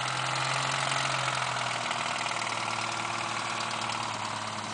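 A 4x4's engine running steadily under load, its pitch dropping slightly about two seconds in.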